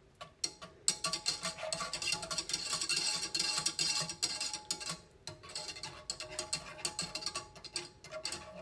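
Wire whisk beating heavy cream and melted butter in a small metal saucepan, the tines clicking and scraping rapidly against the pan, with a short break about five seconds in.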